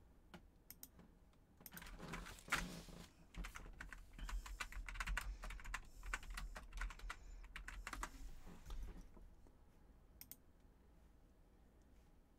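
Faint typing on a computer keyboard: a quick run of key clicks from about two seconds in until about nine seconds, then a few separate clicks.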